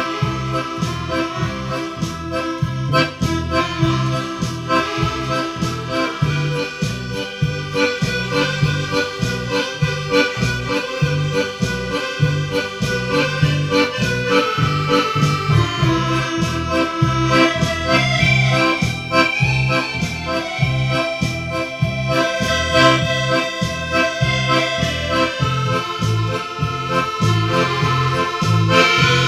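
Background music led by accordion, with a steady rhythmic bass beat.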